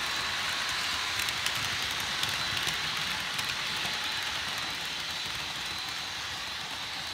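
Model freight train rolling past on the track: a steady clatter and hiss of wheels on rails with small clicks, with a faint high whine, getting slightly quieter toward the end as the last cars go by.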